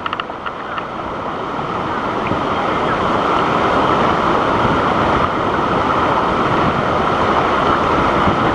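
Waterfall rushing: a dense, steady roar of falling water that grows louder over the first three seconds and then holds, with a few light clicks at the very start.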